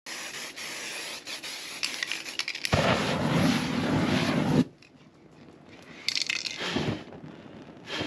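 Aerosol spray-paint can hissing, then the spray is ignited into a burst of flame that whooshes for about two seconds and cuts off suddenly. Two shorter bursts of flame follow, about six seconds in and near the end.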